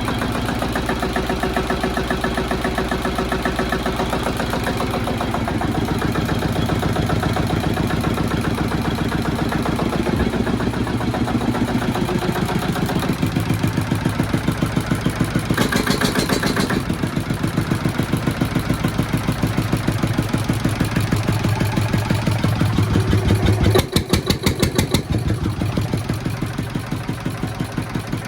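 Southern Cross BDC single-cylinder stationary diesel engine running with a steady, regular firing beat, its note shifting a couple of times, around halfway through and near the end. The engine has just been rebuilt with new piston rings to cure low compression.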